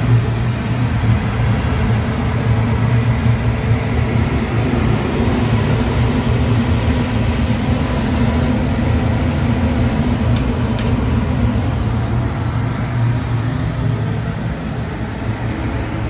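A 100-ton Trane IntelliPak rooftop HVAC unit running: a steady low mechanical hum and drone, with two light clicks about ten seconds in.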